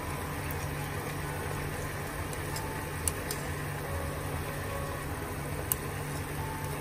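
A metal spoon stirring cornstarch slurry in a ceramic bowl, clinking sharply against the bowl twice, about three seconds apart, over a steady low hum.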